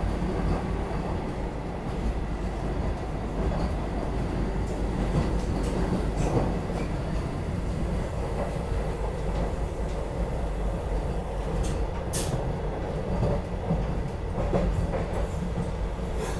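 Running noise of a Vande Bharat electric train heard from inside the coach at speed: a steady low rumble with scattered short, sharp clicks, more of them in the second half.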